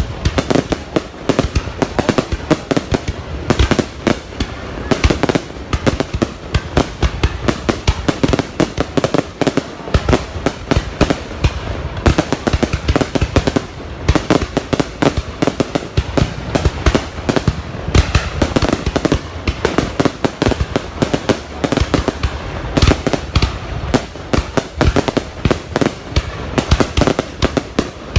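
Fireworks going off in a rapid, continuous barrage of bangs and crackles, several a second without pause.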